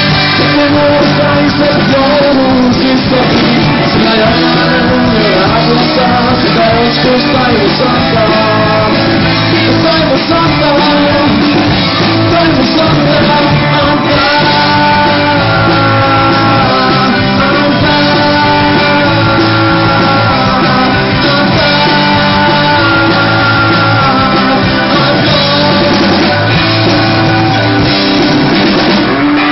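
Rock band playing with a singer, loud and steady throughout, with electric guitar and a male lead vocal singing Finnish lyrics in long held lines.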